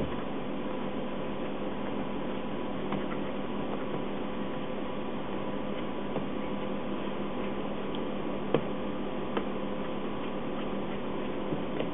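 Steady machine hum from the bakery's equipment, with a few faint clicks and taps scattered through it. The sharpest click comes about two-thirds of the way through.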